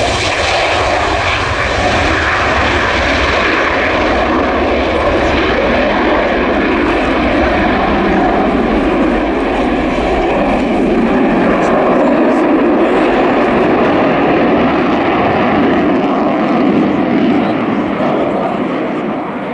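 Twin Klimov RD-33 turbofans of a MiG-29A fighter jet at full afterburner during takeoff and steep climb: a loud, steady jet noise.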